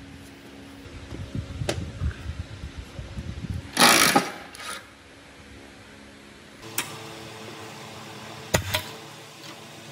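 Rusty cast-iron machine parts being worked by hand: a run of irregular metal knocks and clicks, then a loud metallic clatter about four seconds in. Near the end, a few sharp metal clicks from locking pliers clamping onto a rusted bolt.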